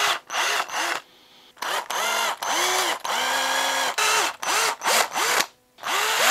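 Cordless drill run in about a dozen short trigger bursts, the motor whining up and dropping off each time, as a twist bit bores holes into a small wooden lure body.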